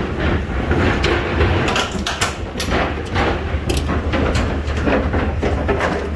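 Cattle hooves clattering and metal gates knocking inside a livestock trailer as heifers are moved: a run of irregular knocks and bangs over a steady low hum.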